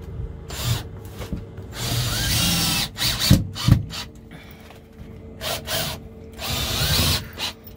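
Cordless drill driving screws into an RV skylight's inner trim ring in the ceiling. It runs in several short spurts, the longest about two seconds in and another near the end, with a couple of sharp knocks between them.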